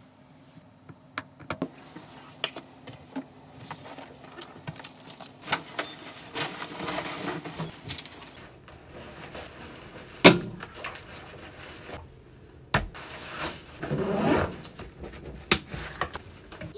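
Rustling and clatter of belongings being packed up at a desk: a pouch handled and a backpack lifted, with a run of sharp knocks and clicks, the loudest about ten seconds in.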